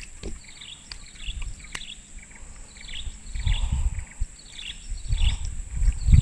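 Tropical forest ambience: a steady high-pitched insect drone, with short falling chirping calls repeated every half second or so. Low rumbles of handling noise near the microphone swell a few times as the fish is unhooked.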